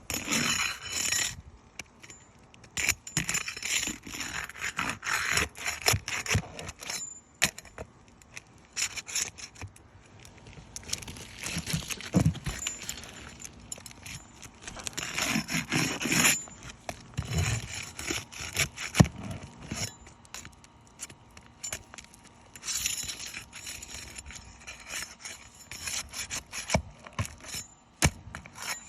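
Hand tools and hands working on asphalt roof shingles during a shingle repair: irregular bursts of scraping and rustling, with sharp clicks and metallic clinks and a few dull knocks.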